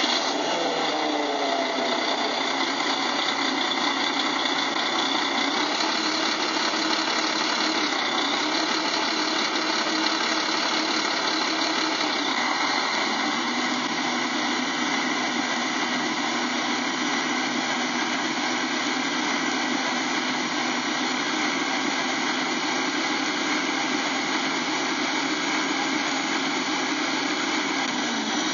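An engine idling steadily right after starting; its pitch falls and settles over the first couple of seconds, then holds even.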